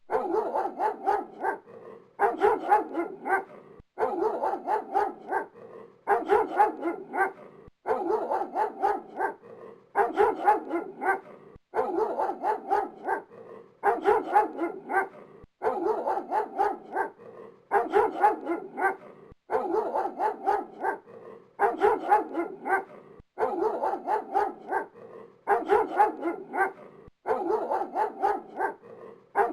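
A dog barking in quick runs of several short barks. The same bark clip repeats as a loop about every two seconds, with a brief pause between repeats.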